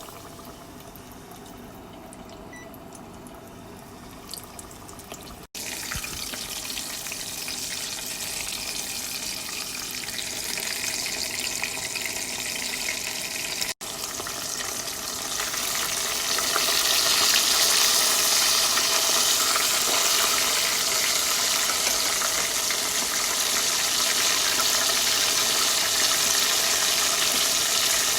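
Food sizzling in a frying pan: a low hiss at first, jumping louder after a few seconds, then swelling to a loud, steady sizzle about halfway through.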